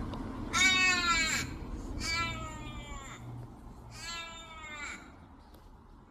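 A bird giving three long, drawn-out wailing calls that sound like a crying baby, each falling slightly in pitch, the first the loudest.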